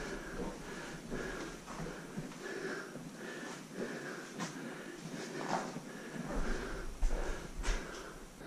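A person breathing close to the microphone, with a few faint clicks and scuffs.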